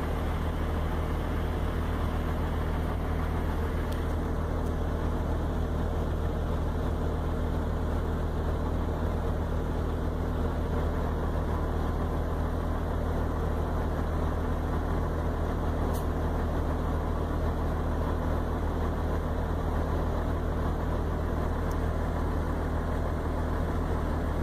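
An engine idling steadily: an even low hum that does not change.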